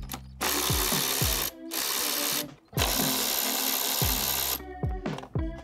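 Cordless power driver with a socket spinning bolts out of an engine's top end, running in three bursts: about a second, under a second, then nearly two seconds. Background music plays underneath.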